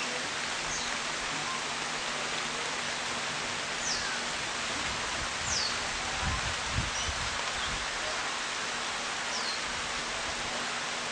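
Steady, even hiss of rain, with a few short, high, falling bird whistles and a couple of low thumps a little past the middle.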